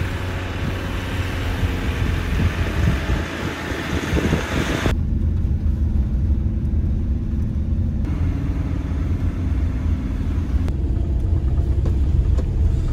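A camper van driving slowly on a gravel track. For the first five seconds there is loud hissing road noise with scattered crunches from the tyres on gravel. About five seconds in it changes abruptly to the steady low engine and road rumble heard inside the cab.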